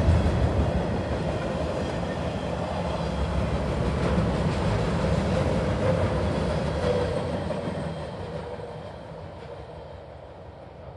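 Freight train's loaded flatcars rolling past, steel wheels rumbling and clicking over the rail joints. The sound fades steadily as the end of the train passes and moves away.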